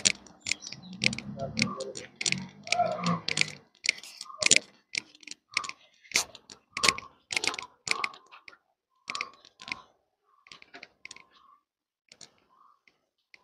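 Footsteps on a paved path, sharp clicks at a walking pace of about two steps a second, growing fainter toward the end.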